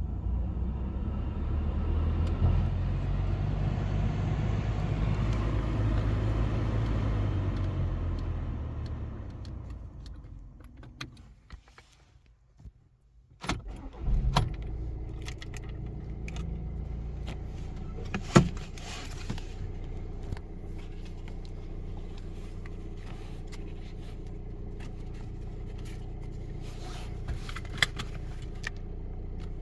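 A VW Passat B7 being started: after a loud low rumble that fades away over about ten seconds and a short near-silent pause, the engine cranks and catches with a brief loud burst about 14 seconds in, then settles into a steady idle with a few sharp clicks.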